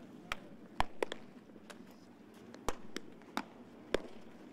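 Baseballs smacking into leather gloves as several players play catch. Sharp pops come at irregular intervals, some louder than others.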